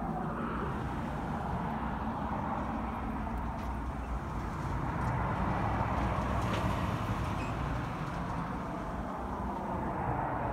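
Road traffic: a steady tyre hiss that swells about halfway through and then eases off.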